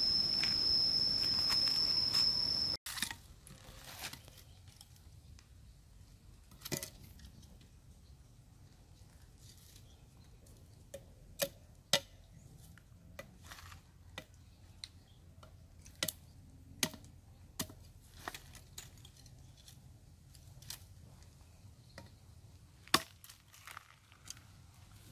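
Machete chopping at a thin green sapling stem: scattered sharp chops and cracks, one or two at a time, several seconds apart. In the first few seconds, before the chopping, a steady high insect buzz sounds over outdoor ambience and then cuts off suddenly.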